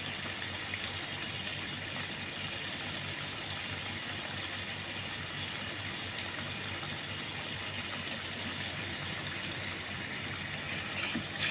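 Canned sardines in their sauce boiling steadily in a frying pan, a continuous bubbling hiss.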